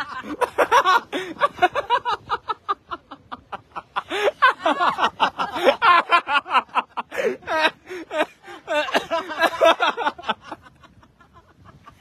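People laughing hard in long fits of quick, pulsing bursts, dying down about a second before the end.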